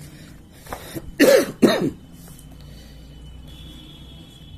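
A man coughs twice in quick succession, a little over a second in.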